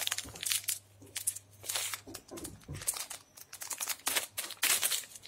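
Plastic sweet wrapper of Sparks Sour Nuggets crinkling in irregular crackles as it is twisted and pulled at to be torn open.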